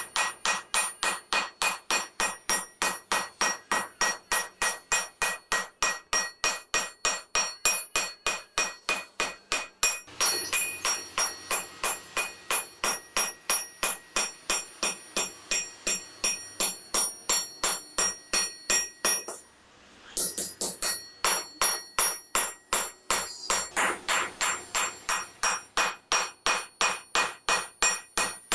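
Hammer forging red-hot steel on an anvil: rapid, evenly spaced blows, about three a second, each with a bright metallic ring. The hammering breaks off briefly about two-thirds of the way through, then resumes.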